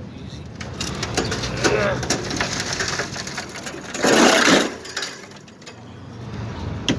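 Knocks, clicks and scraping from a window air conditioner being taken apart, with one louder noisy burst of about half a second about four seconds in and a sharp knock near the end.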